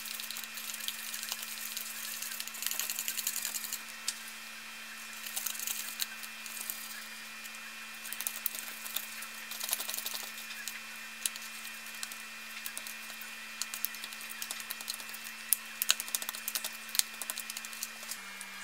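Small plastic spoon stirring and scraping a crumbly candy-kit paste in a thin plastic tray: irregular clicks, crackles and scrapes, with some sharper clicks a little after the middle. A steady low hum runs underneath.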